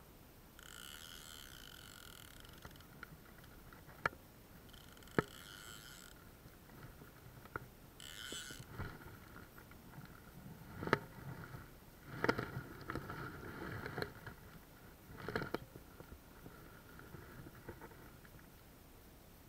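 Water sloshing and splashing with scattered sharp knocks, heaviest in the middle stretch. Three short bursts of frog calls come in the first half.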